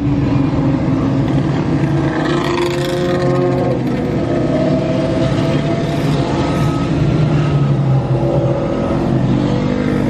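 A pack of motorcycles riding past, engines revving, their pitch rising and falling, heard from inside a car.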